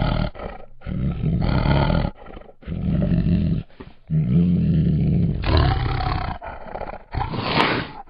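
Female Bengal tiger giving a series of hoarse, throaty growls with short pauses between them, the loudest near the end.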